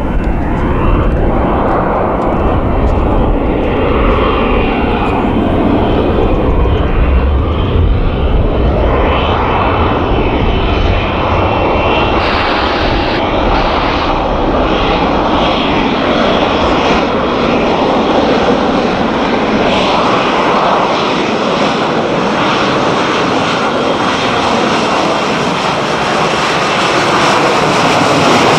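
F-35B fighter jet's engine, loud and steady, with a tone that sweeps slowly up and down as the jet moves; the deep low rumble fades in the last third.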